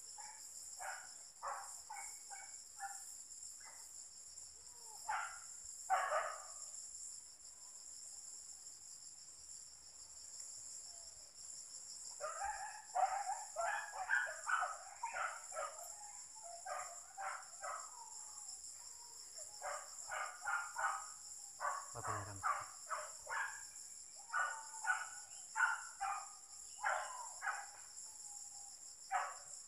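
Steady high drone of crickets and other insects, with hunting dogs barking in short repeated bursts, sparse at first and then in dense runs through the middle and latter part.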